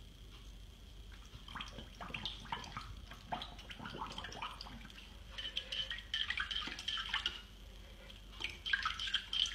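Water in a dog's bowl splashing and dripping as a puppy mouths and paws at it, in quick irregular little splashes that come thickest in two spells in the second half.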